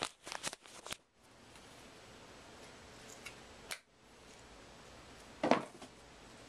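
Handling noises of plastic goggles being fitted onto a motocross helmet: a quick run of clicks in the first second, a single click near four seconds, and a louder short rub about five and a half seconds in.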